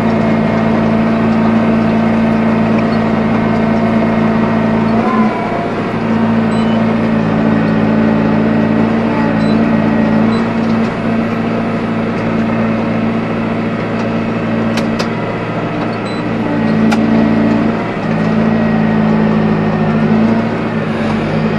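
Tractor engine running steadily under load while working a Kuhn GA 13131 four-rotor hay rake. Its note dips briefly a few times, and there are a few faint ticks near the middle.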